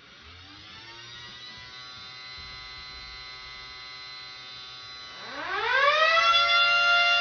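A miniature 2T22A siren and a custom-built siren winding up one after the other. The first climbs in pitch at the start and settles into a steady multi-tone wail. About five seconds in, a second, much louder siren winds up with a rising pitch and joins it in a steady chord.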